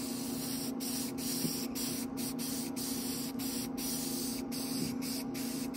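Airbrush spraying paint: a steady hiss of air, cut by many brief gaps about twice a second, over a steady low hum.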